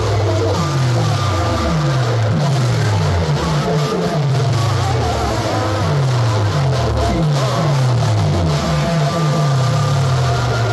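Heavily distorted DJ music from a competition sound system of stacked horn loudspeakers, played at full volume. A deep bass note slides down in pitch over and over, about twice a second.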